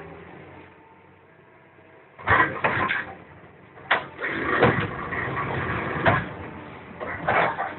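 Hydraulic demolition shear on a crawler excavator biting into the steel hull of an old deck barge: irregular loud bursts of steel plate being crushed and torn, starting about two seconds in and coming repeatedly after that, over the excavator's engine running.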